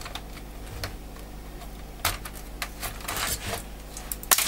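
Plastic top case of an HP g7 laptop being pulled off its base: scattered clicks, a scraping rattle around the middle and a sharp crack near the end as the damaged housing comes apart.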